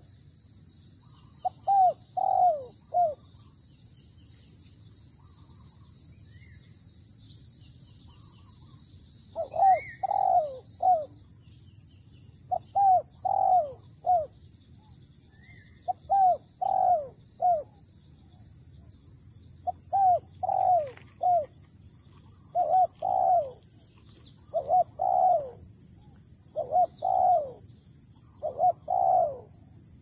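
Spotted dove cooing: repeated phrases of about three coos, each falling in pitch. After the first phrase there is a pause of about six seconds, then the phrases come every one and a half to three seconds.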